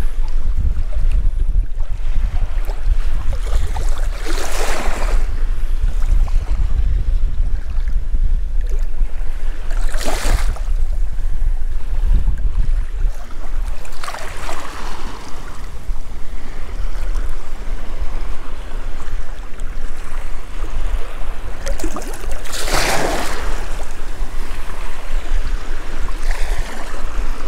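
Wind buffeting the microphone in a steady low rumble over shallow saltwater lapping and sloshing. Four short swells of rushing, splashing noise stand out, the loudest about three-quarters of the way through.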